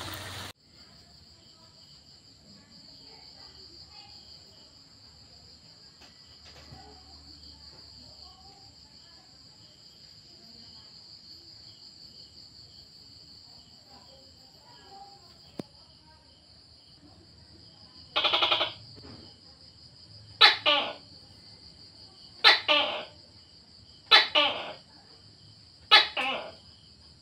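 A steady high trill of crickets or other insects. From about two-thirds of the way in, a series of six loud two-part calls comes about two seconds apart; the first is the longest and the last is short.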